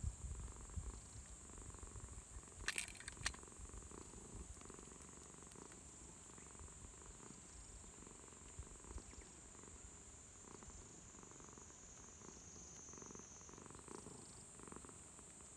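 Calico cat purring steadily and contentedly while being stroked. A couple of sharp clicks about three seconds in, and a steady high-pitched tone in the background.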